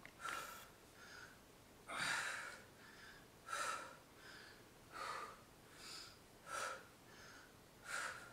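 A woman breathing hard under exertion: strong, noisy breaths about every second and a half, with softer breaths between them, in a steady rhythm.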